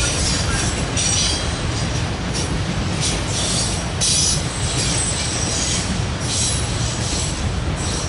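Freight train of autorack cars rolling past with a steady rumble of wheels on rail. High-pitched wheel squeals come and go every second or so.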